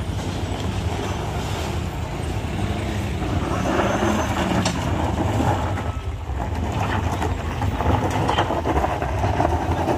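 A heavy vehicle's engine running with a steady low rumble and road noise, growing louder about three and a half seconds in, with a brief dip around six seconds.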